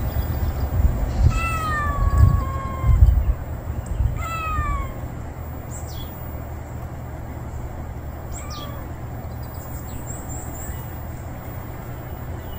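A cat meowing for food: two long meows that fall in pitch in the first five seconds, then a faint short one later. Low bumps and rumble come through in the first few seconds.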